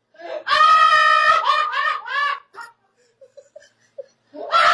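A person laughing hard and high-pitched: a long drawn-out shriek of laughter, then a string of rhythmic 'ha' bursts that die away, and after a brief lull another loud burst of laughter near the end.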